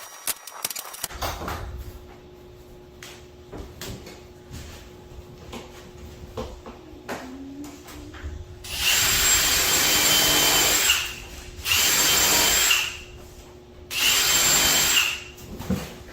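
Power drill driving a self-centering hinge bit into wood, run in three short bursts, the first about two seconds long and the next two about a second each, with a steady high motor whine. Light handling knocks come before the first burst.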